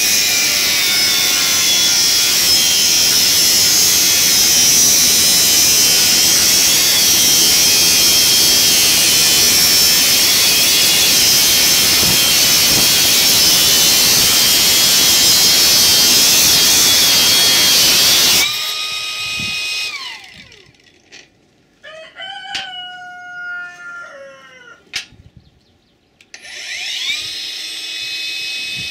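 Kress KU801 angle grinder cutting rusty steel bar with an abrasive cut-off disc, a loud steady grinding screech for about eighteen seconds, then released and winding down. In the quiet that follows a rooster crows once, and a few seconds from the end the grinder is switched on again and spins up, running free.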